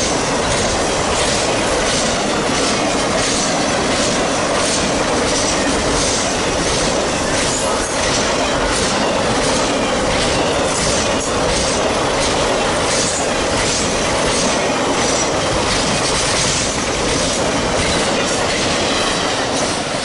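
Triple Crown RoadRailer train, trailers riding on rail bogies, rolling past close by: a steady loud rolling noise of steel wheels on rail, with repeated clicking as the wheels cross rail joints.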